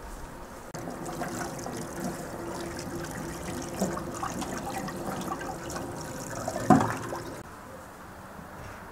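Tap water running and splashing over raw chicken breast and hands in a stainless steel sink as the meat is rinsed. A single sharp knock comes near the end of the running water, which then stops about seven seconds in.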